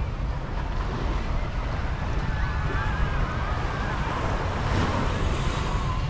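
Sea waves washing onto the beach, with wind buffeting the microphone in a steady low rumble.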